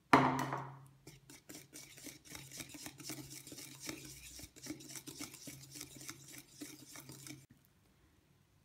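A wire balloon whisk stirring flour and cornflour into an egg-and-sugar batter in a mixing bowl: quick, uneven ticking and scraping of the wires against the bowl. It opens with one loud knock and stops about a second before the end.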